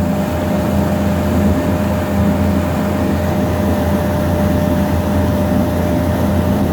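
A ferry boat's engine running steadily under way: an even drone with a constant hum.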